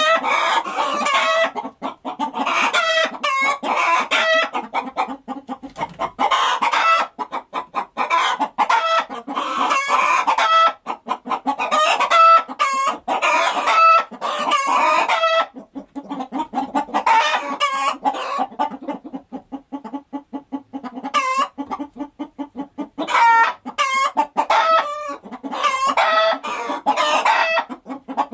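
A flock of chickens clucking and squawking, many calls overlapping. The calls thin out for a few seconds past the middle, then pick up again.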